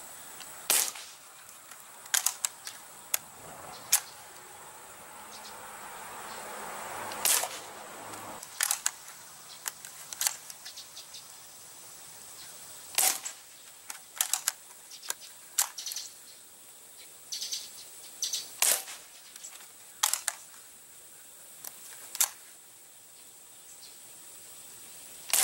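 Crosman 760 Pumpmaster multi-pump pellet rifle fired several times, each shot a sharp pop, a few seconds apart, with smaller clicks between the shots.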